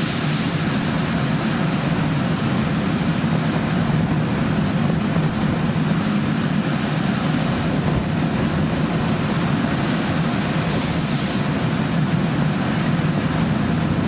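Ship at sea: a steady low engine hum under an even rush of wind and water noise.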